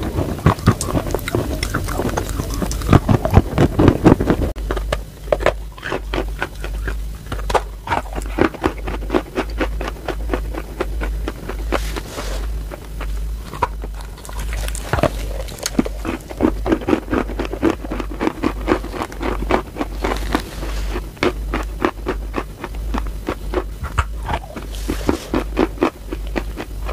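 Close-miked biting and chewing of chalk: many sharp crunches and crackles, louder in the first few seconds. A low hum runs beneath from about four seconds in.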